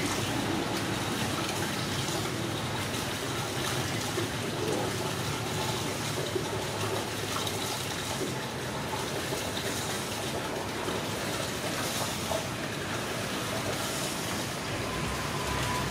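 Steady background noise, an even hiss with no distinct event standing out.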